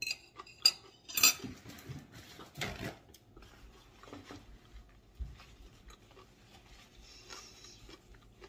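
Cutlery clinking sharply against a dish three times in the first second and a half, then a heavier clatter near three seconds. After that come only soft handling sounds as a paper napkin is used.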